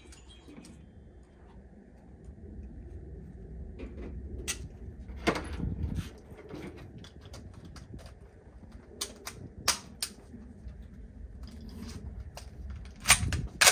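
Irregular gunshots at a shooting range: about ten sharp cracks, single shots and a few quick pairs, the loudest a few seconds in and near the end, over a low steady rumble.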